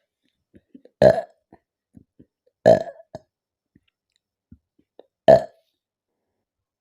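A woman burping three times, each burp short and loud, about two seconds apart, the gas coming up from drinking carbonated Thums Up cola.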